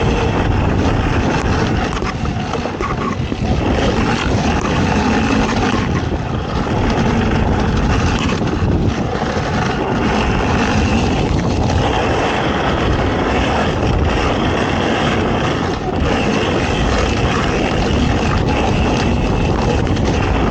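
A racing ATV engine running hard and continuously, with a heavy rumbling, noisy sound. The loudness dips briefly about two seconds in and again near sixteen seconds.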